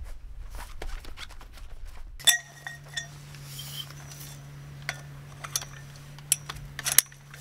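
Metal pole sections clinking against each other as they are handled and fitted together: a sharp, ringing clink about two seconds in, then several lighter clinks and taps.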